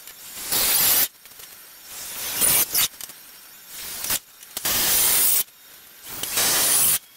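Cordless drill-driver driving wood screws into the thick boards of a workbench top: several short runs, each building up and cutting off abruptly as a screw seats.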